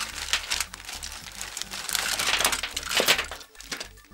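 A gallon plastic zip bag crinkling as it is handled and tipped out, with a heap of plastic action figures and parts tumbling onto a table, loudest a couple of seconds in.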